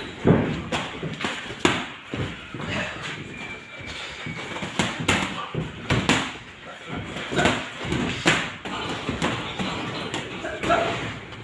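Boxing gloves landing on gloves, headgear and bodies in sparring: a dozen or so sharp smacks and thuds at irregular intervals, echoing in a large room.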